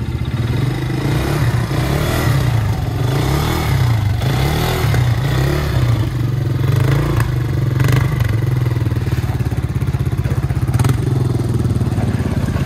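Off-road buggy engine running steadily, its pitch wavering a little as the throttle changes, with a couple of brief knocks.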